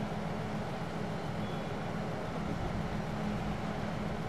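Airbus A380's four Rolls-Royce Trent 900 jet engines droning steadily on approach, heard at a distance as an even rumble with a low hum.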